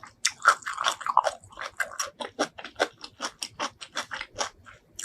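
A person chewing seafood right at an ASMR microphone, in a steady run of short, sharp chews, about four to five a second.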